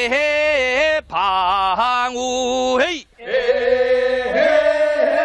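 Male singing of a Korean traditional rice-paddy weeding work song (nongyo). The singer holds long, drawn-out notes with a wavering pitch and breaks off briefly twice, about one and three seconds in.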